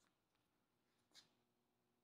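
Near silence: room tone, with one faint short tick about a second in.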